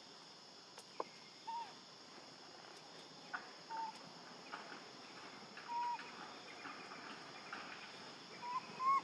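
Short arched calls, about six of them a second or two apart, the loudest pair near the end, over a steady insect drone. A single sharp click comes about a second in.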